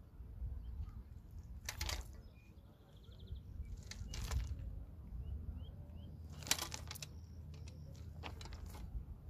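Outdoor riverbank ambience: a low steady rumble, broken by four short rustling noises about two seconds apart, with a few faint high bird chirps in between.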